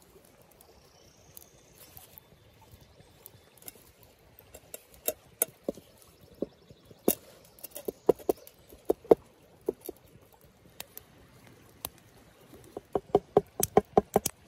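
Pocketknife blade cutting into a toasted English muffin: a string of crisp clicks and crunches, scattered at first, busiest in the middle and quickening into a fast run near the end.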